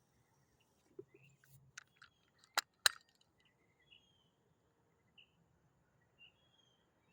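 A soft thump, then a few sharp clicks, the loudest two close together about two and a half seconds in, followed by faint, scattered bird chirps.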